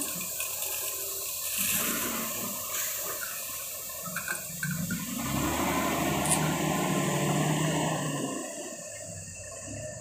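Komatsu wheel loader dumping a bucket of gravel into a dump truck: a rushing, hissing pour of stone over the loader's diesel engine. The engine drone strengthens midway and eases off near the end.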